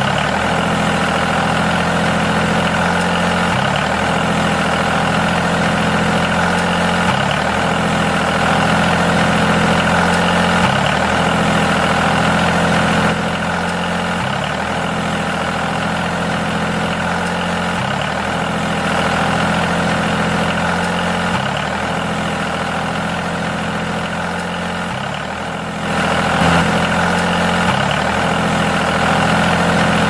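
Tractor engine idling steadily, the same short stretch of sound repeating about every second and a half; it dips a little in loudness shortly before the end.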